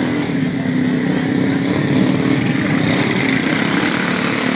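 ATV engine running steadily at high revs, a loud continuous drone.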